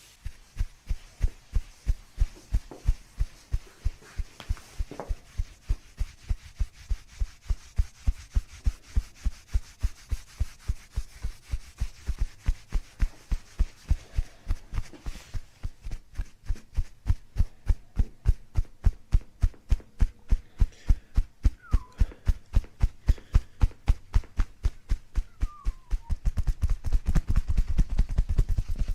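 A steady run of short, low thumps, about three a second, coming a little faster in the second half, with a low rumble joining near the end.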